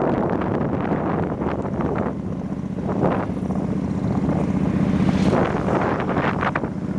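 Wind buffeting the microphone on a moving motorbike, in uneven gusts over a steady low hum from the ride.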